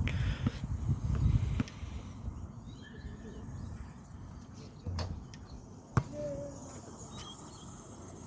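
Wind rumbling on the microphone for about the first second and a half, then quieter outdoor ambience with faint bird calls and two sharp clicks, about five and six seconds in.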